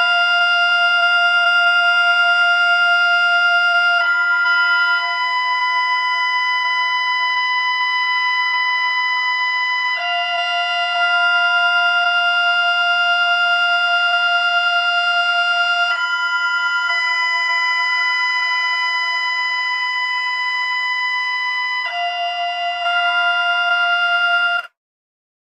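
A slowed-down emergency alert alarm tone: steady, organ-like tones that switch back and forth between two pitches about every six seconds, then cut off abruptly near the end.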